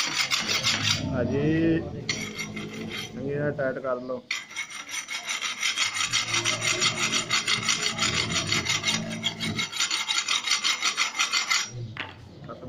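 A knife being sharpened with fast, steady rasping strokes. The strokes pause briefly about a second in and again around four seconds, then run on and stop shortly before the end.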